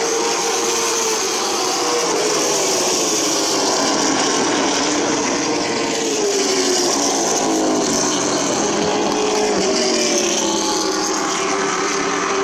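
Several short-track race car engines running at speed around the oval. Their pitch rises and falls as the cars accelerate, back off and pass.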